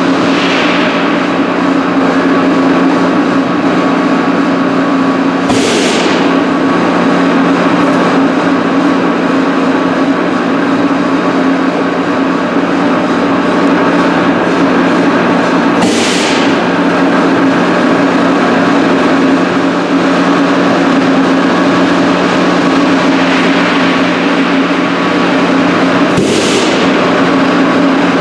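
Powder coating booth's extraction system running with a loud, steady hum and rush of air. Three short, sharp blasts of compressed air come about ten seconds apart, in the rhythm of pulse-jet cleaning of the booth's cartridge filters.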